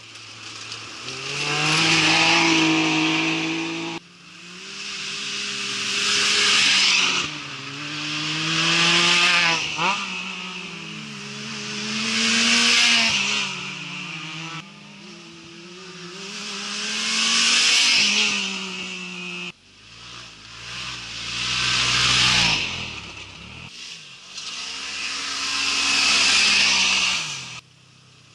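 Off-road race vehicles passing at speed on a dirt track, one after another, about seven passes in all. Each engine revs up as it approaches, changes pitch through gear shifts and fades away, with loud tyre and dirt hiss. Several passes break off abruptly as the next one starts.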